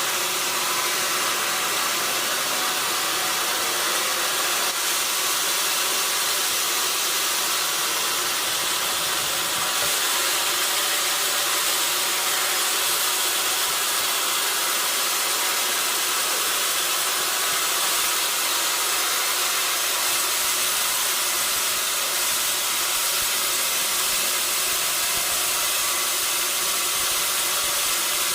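Sawmill saw cutting through a log, a loud, steady hiss with no breaks.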